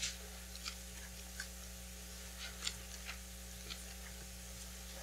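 Thin Bible pages being leafed through by hand: about half a dozen short, soft paper rustles and flicks at irregular intervals, over a steady low room hum.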